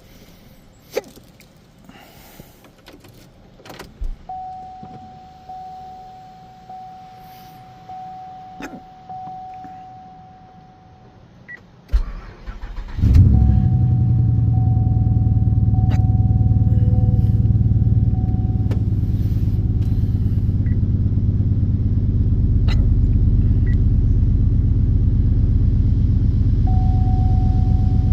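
Pontiac GXP's 5.3-litre V8 being started. After some clicks and a repeating chime, the starter cranks about twelve seconds in, the engine catches and then idles steadily, with the chime sounding again over the idle.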